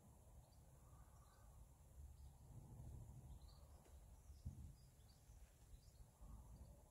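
Near silence outdoors: a faint low rumble with a few faint, brief bird chirps scattered through.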